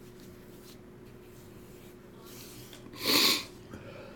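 Faint room tone with a steady low hum, then about three seconds in a short, loud rush of breath through a person's nose.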